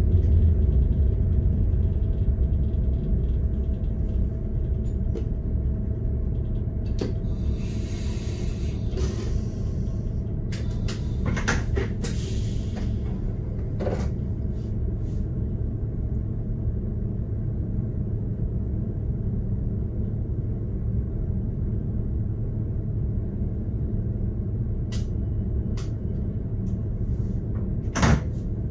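SBB RBDe 560 'Domino' electric multiple unit running along the line, heard from inside the driver's cab: a steady low rumble of wheels and running gear. Short hissing stretches come about seven seconds in and again around twelve seconds, and a sharp click sounds near the end.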